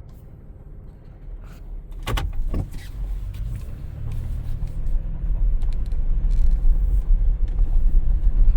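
Vehicle driving slowly over a rough road: a low engine and tyre rumble that grows louder from about three seconds in, with a couple of sharp knocks about two seconds in.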